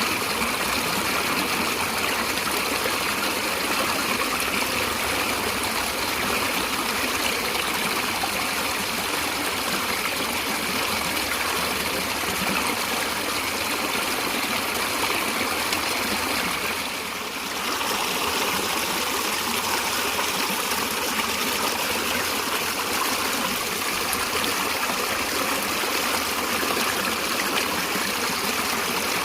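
Stream water running steadily, an even continuous rush that dips briefly about two-thirds of the way through.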